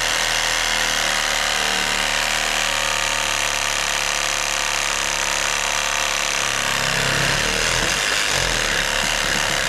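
Power saw running steadily under load, cutting into an 8x8 oak post; its pitch shifts about seven seconds in.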